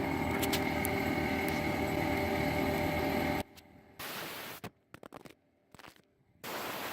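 Compressed air blowing from an air compressor hose to clean the mounting area, a steady hiss over a running motor's hum that cuts off about three and a half seconds in, followed by a few short hissing bursts with silent gaps between them.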